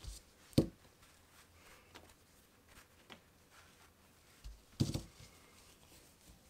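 Quiet handling sounds of crocheting with bulky yarn and a crochet hook, broken by two sharp knocks: one about half a second in and a short cluster just before five seconds in.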